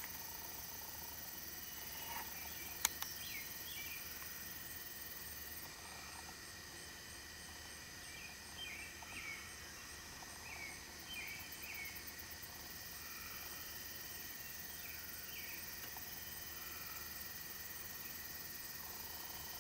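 Field ambience of a steady insect chorus, crickets droning in several high, even tones. Scattered short bird chirps come and go through the middle, and one sharp click sounds about three seconds in.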